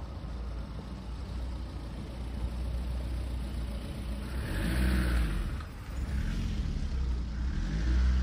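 Street traffic: a car passes on the road about four to five seconds in, with another swelling past near the end, over a steady low rumble.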